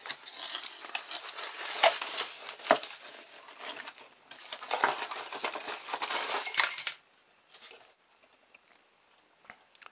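Small hard plastic toy parts clicking and clattering as they are handled and taken apart, with a few sharper snaps among them; the handling stops suddenly about seven seconds in.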